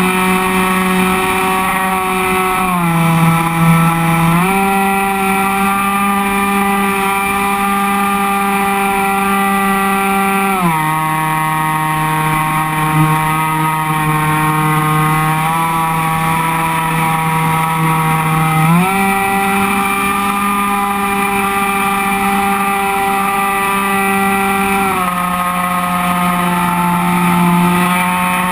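Electric motor and propeller of an FPVRaptor model plane, heard from the camera on the airframe: a steady whine whose pitch steps down and back up several times as the throttle is eased and opened in flight.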